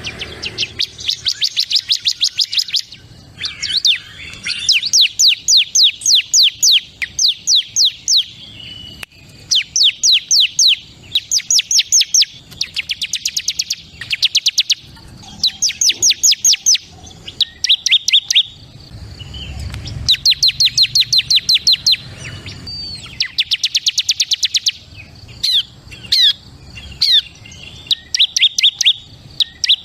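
Bar-winged prinia (ciblek kristal) singing: fast trills of sharp, high chirping notes, roughly eight to ten a second. They come in phrases of one to two seconds with short pauses between.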